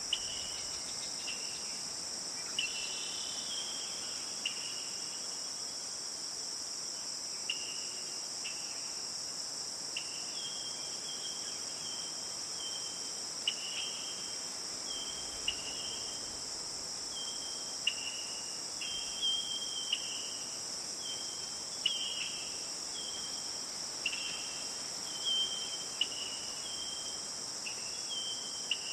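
Steady, high-pitched chorus of insects, with a bird repeatedly calling short whistled notes, some level and some falling, every second or two. The bird's notes are the loudest sounds.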